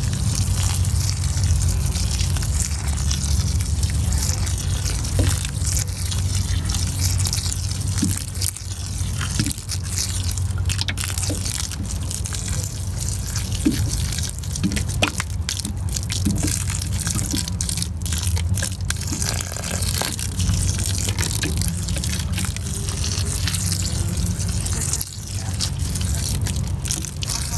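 Water pouring steadily from a plastic watering can's spout onto loose soil in a bucket, over a steady low rumble.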